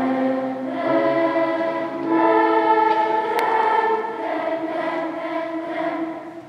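Large children's choir singing held chords in a big concert hall, the notes changing every second or two; the sound fades away near the end.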